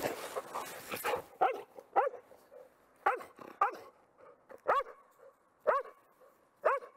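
Black Labrador search-and-rescue dog barking about eight times, roughly once a second. These are short, evenly paced barks, the bark alert that tells the handler the dog has found the hidden person.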